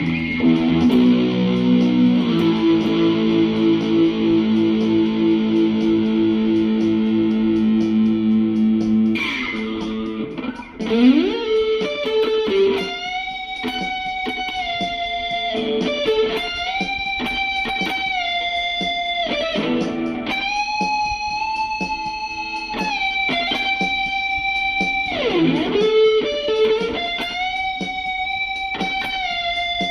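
Epiphone Les Paul Studio LT electric guitar played through an amplifier: sustained chords for about nine seconds, then a single-note melody with slides between notes.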